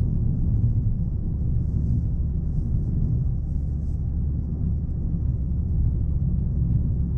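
Chevrolet Aveo on the move: a steady low rumble of engine and road noise with no change in pitch.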